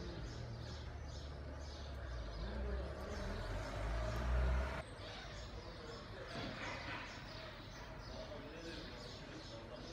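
Small birds chirping repeatedly, about two chirps a second, over outdoor background noise. A low rumble under them swells about four seconds in and cuts off abruptly about five seconds in.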